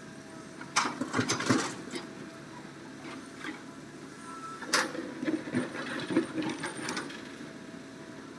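Quarry stones from a Hitachi excavator's bucket clatter into a dump truck's bed for about a second, over the steady drone of the excavator's engine. A few seconds later the bucket digs into the stone pile with a second, longer run of rattling rock.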